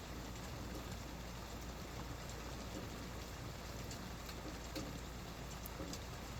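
Steady rain falling, with scattered sharp taps of drops hitting a surface.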